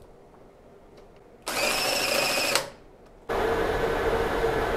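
A cordless drill whines for about a second as it spins the lathe's three-jaw chuck key to clamp the part, then stops abruptly. Shortly after, the metal lathe starts suddenly and runs steadily with a hum.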